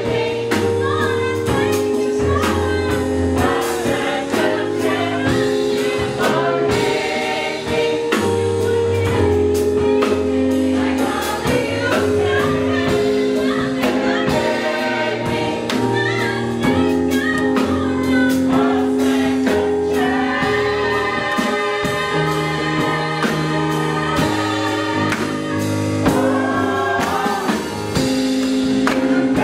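Church choir singing a gospel song in harmony, backed by long held chords, a bass line and a steady beat.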